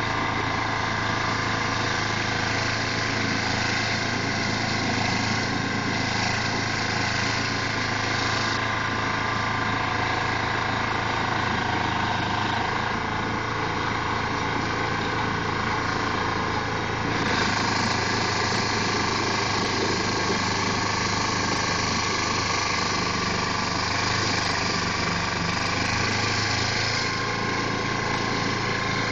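2004 Carlton SP4012 stump grinder running at steady speed while its cutter wheel grinds into a stump. The grinding noise steps up and down a few times as the wheel works.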